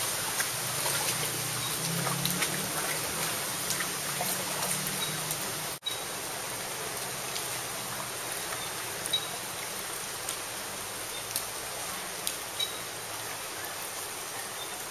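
Steady rain falling on shallow floodwater and foliage, with scattered louder drips and splashes.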